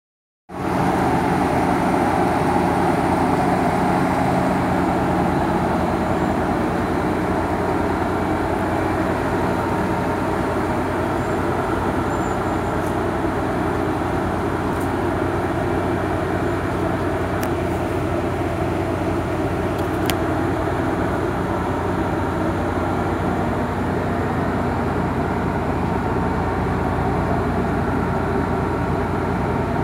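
A 1990 Nissan 300ZX Twin Turbo's VG30DETT twin-turbo V6 idling steadily.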